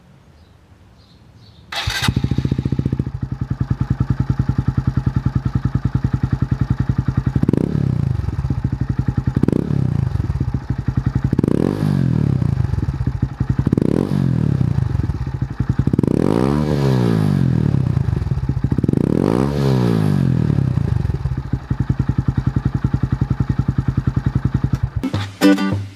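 Honda Grom (MSX125) single-cylinder four-stroke motorcycle engine through an aftermarket exhaust, coming in about two seconds in and idling, then revved in a series of about seven throttle blips that rise and fall, the two near the middle the highest and longest, before settling back to idle.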